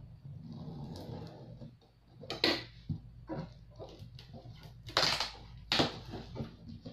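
A cardboard printer box being opened: scissors scraping along the packing tape, then the taped top flaps pulled apart in several loud, sharp rips of tape and cardboard.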